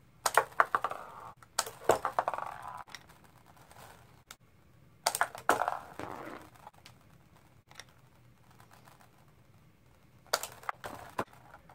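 Plastic Playmobil figures and a toy cannon clicking and clattering on a tabletop as they are handled and knocked over, in four short bursts of clicks with quiet between them.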